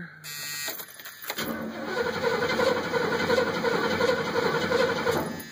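The starter cranks a 1979 Pontiac Trans Am's 403 Oldsmobile V8 for about four seconds during a compression test on cylinder number 4. The cranking begins about a second and a half in, carries a steady whine, and stops shortly before the end.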